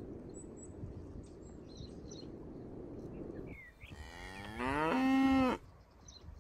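A cow moos once, a call of about a second that rises and then holds steady, about two-thirds of the way in. Low wind noise comes before it, and faint bird chirps sound throughout.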